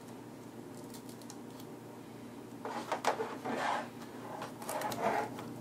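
Plastic clicks and scraping as a netbook LCD panel is pried up and lifted out of its plastic lid. A quiet first half, then a cluster of sharp clicks and rustling from about halfway through.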